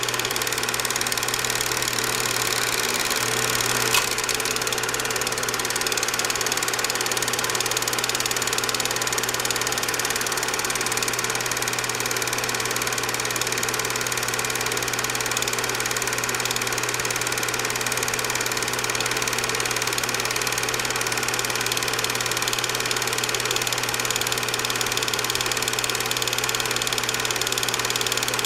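Cine film projector running steadily: a continuous mechanical whirr with a low steady hum, and one sharp click about four seconds in.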